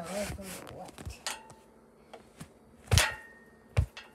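A child's wavering hum trails off in the first half second. Then come a few light knocks and two loud thumps, about three seconds in and just before the end, as the phone is handled and bumped.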